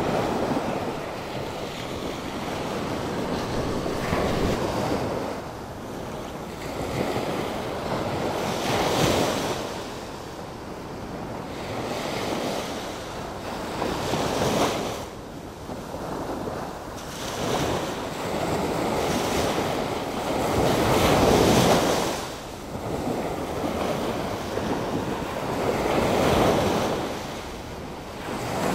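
Atlantic Ocean surf breaking and washing ashore in rough, storm-driven seas, the waves surging and falling back every few seconds, with wind buffeting the microphone.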